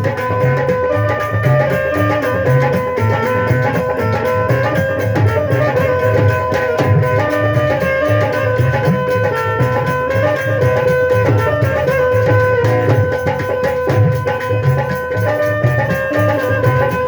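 Instrumental interlude of live Punjabi folk-devotional music: a melodic instrument holds steady sustained notes over a continuous hand-drum rhythm, played loud.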